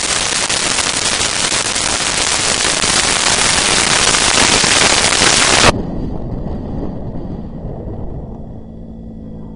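Heavy wind rush buffeting the microphone of a motorcycle travelling at speed. It cuts off suddenly about two-thirds of the way through, leaving quieter motorcycle engine and road rumble.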